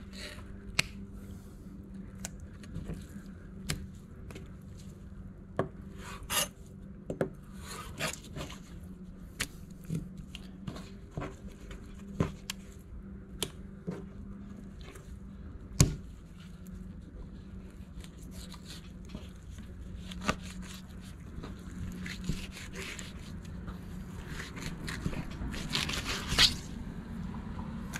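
Fillet knife scraping and rubbing along a stone cutting board as flounder fillets are skinned and trimmed, with scattered sharp knife taps and knocks, the loudest about 16 seconds in. A low steady hum runs underneath.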